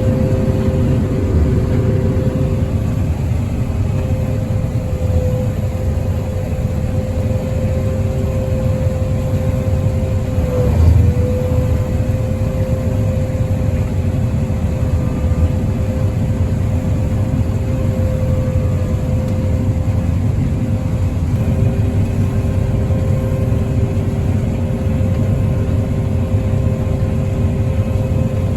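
John Deere 9400 combine running steadily while harvesting soybeans with a 915 bean head: a low machine drone with a steady whine over it. A brief thump about eleven seconds in, with a momentary dip in the whine.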